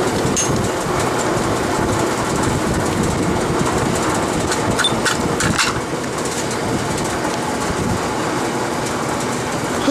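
A steady mechanical rattle and hum from a running machine, with a few sharp metal clinks about five seconds in.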